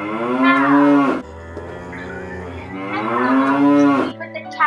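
Two long cow moos, each about a second, the second starting about two seconds after the first, over faint background music.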